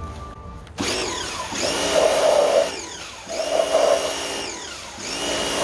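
Pressure washer in short bursts: its motor and pump spin up with a rising whine about a second in, run with the hiss of the water jet, then wind down as the trigger is let go, and start again twice more, the third time near the end. The jet is blasting leftover diesel soot out of an aluminium intake manifold.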